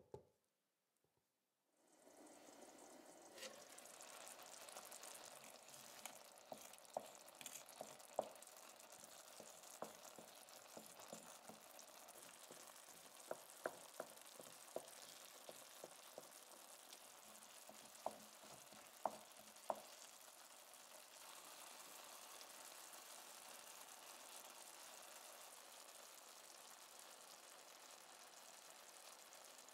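Tomato and chickpea sauce sizzling quietly and steadily in a pan, starting about two seconds in. A wooden spoon stirring through it knocks and clicks against the pan many times in the middle stretch.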